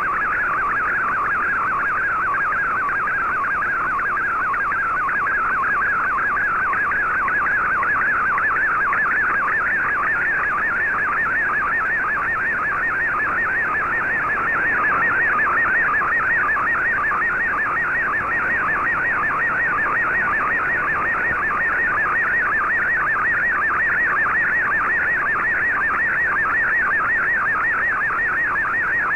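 Shortwave digital-mode broadcast received on an Icom IC-R8600 in AM: the picture signal of an MFSK64 image transmission, a rapidly warbling tone sweeping about between roughly 1 and 2 kHz as it carries the image line by line, over steady shortwave hiss.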